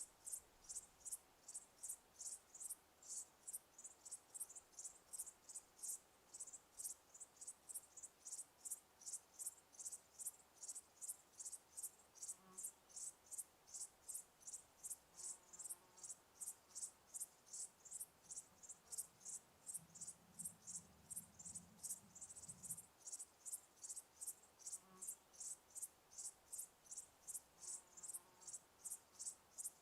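Cricket chirping in a steady, even rhythm of about three high-pitched chirps a second.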